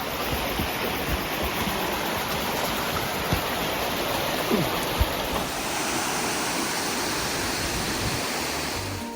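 Rushing water, a steady even rush of noise with no change throughout.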